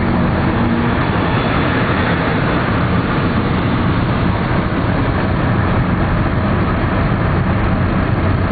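Steady road and engine noise of vehicles travelling at highway speed as a car overtakes a logging truck.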